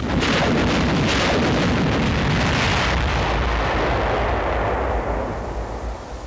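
Salvo of 7.2-inch demolition rockets fired from a tank-mounted T-40 launcher. A rapid series of bangs merges into a continuous rumbling roar, which fades over the last few seconds.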